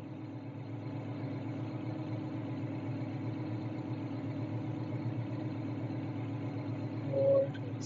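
Ford Mustang Cobra's V8 engine idling with a steady, even low hum.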